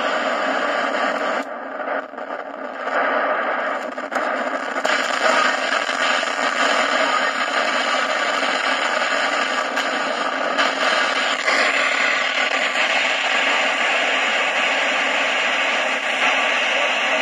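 President Benjamin CB base station's speaker giving out steady receiver static with the squelch open. The hiss drops out briefly about two seconds in and changes texture about twelve seconds in as the channel is stepped.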